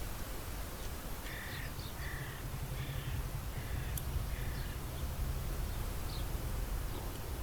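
A bird calling five times in a row, about one short call every three quarters of a second, over a steady low rumble.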